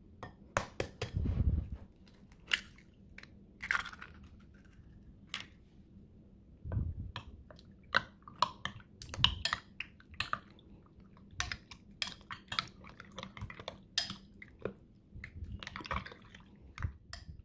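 An egg cracked on a glass bowl near the start, then a metal spoon stirring raw chicken pieces in egg: wet squishing with repeated clicks of the spoon against the glass.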